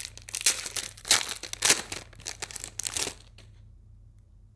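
A foil Pokémon card booster pack being torn open by hand, the wrapper crinkling in quick irregular crackles that stop about three seconds in.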